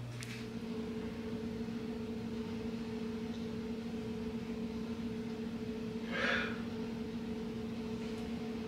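A steady low hum, with a brief soft rustle about six seconds in.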